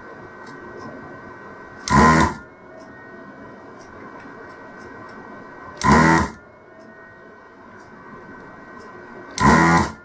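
Electric desoldering gun's built-in vacuum pump buzzing in three short bursts of about half a second each, a few seconds apart, as it sucks molten solder off the pins of a circuit-board audio socket.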